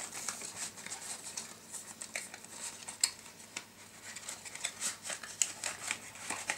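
A boxed perfume being unpacked by hand: scattered light rustles and crinkles of packaging, with a sharper click about three seconds in.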